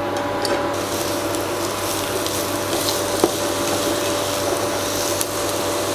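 Diced apple sautéing in ghee in a nonstick frying pan: steady sizzling with a few light spatula taps, over a steady low hum.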